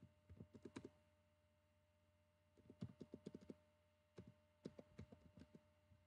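Faint computer keyboard typing: three short runs of keystrokes as a word is typed out.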